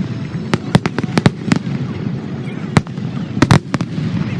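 Fireworks display: aerial shells bursting in an irregular series of sharp bangs, with a quick cluster of bursts about three and a half seconds in.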